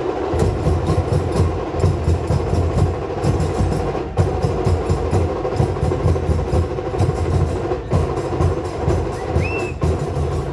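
Goan Shigmo festival percussion troupe playing a fast, driving beat on big drums with sharp metal percussion over them. A short whistle sounds near the end.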